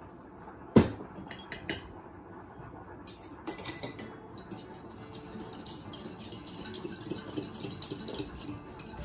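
Metal utensils clinking against ceramic bowls. There is a sharp clink about a second in, and a clatter of metal measuring spoons set down in a small ceramic bowl around three to four seconds in. Then comes a light, even tapping as a utensil stirs the egg-and-milk mixture in the bowl.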